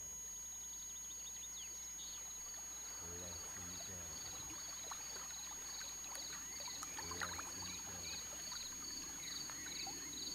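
Soft recorded trickling stream, gurgling water coming in about two seconds in over a sustained ambient music pad, with a faint high chirping repeating about twice a second.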